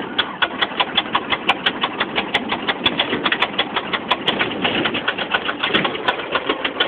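Cessna 150's four-cylinder Continental O-200 engine being cranked by its electric starter, turning over in an even rhythm of about five or six pulses a second without catching. The pilot takes this to mean the engine needs a shot of primer.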